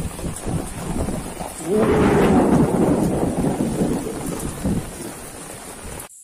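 Heavy rainstorm: steady rain with strong wind on the microphone, and a loud rumbling surge about two seconds in that lasts some three seconds before easing. The sound cuts off abruptly just before the end.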